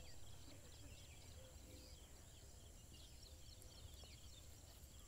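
Near silence: faint outdoor ambience with distant birds chirping.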